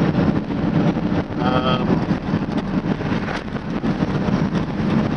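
Steady low rumble of a vehicle on the move, heard from inside the cab, with a short spoken word about a second and a half in.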